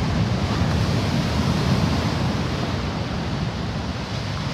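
Heavy storm surf breaking over rocks and washing up the shore: a steady rush of churning sea with no single crash standing out.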